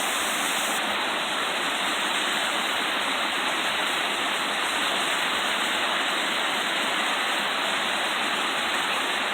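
Waterfall on a rocky creek: a steady, even rush of falling water.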